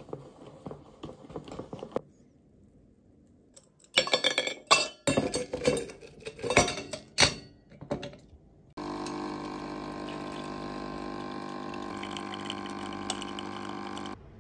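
Faint whisking in a bowl, then a run of sharp metallic clinks as ice goes into stainless steel tumblers. About nine seconds in, a countertop drink machine starts with a steady hum for about five seconds and cuts off suddenly.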